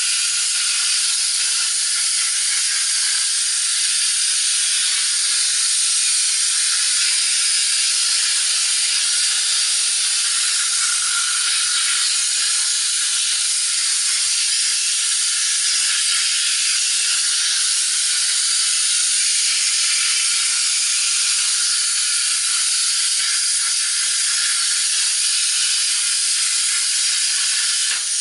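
Hypertherm Powermax 45 plasma cutter torch cutting metal on a CNC table: a loud, steady, high hiss from the plasma arc and its air jet.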